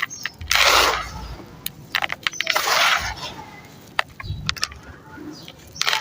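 Chunks of stone-and-sand cement crumbling into water: two gritty, splashy rushes, about half a second in and again around two and a half seconds, with scattered sharp clicks and cracks of pieces breaking off.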